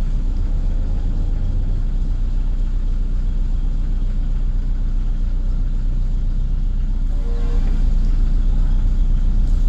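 Steady low rumble of a vehicle in motion, with a brief pitched sound, perhaps a voice, about seven and a half seconds in.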